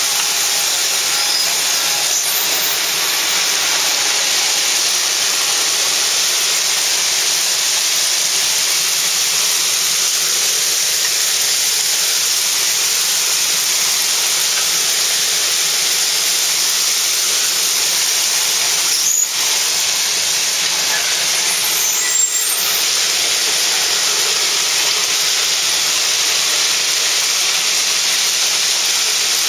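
Railway ballast plow on a moving car scraping and shoving crushed-rock ballast along the rail as the car rolls: a steady, loud hiss of grinding stone. Two brief sharp squeals come about two-thirds of the way through.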